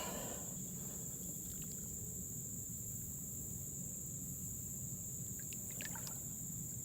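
Insects droning with a steady, high-pitched, unbroken tone, over a faint low rumble, with a few soft ticks near the end.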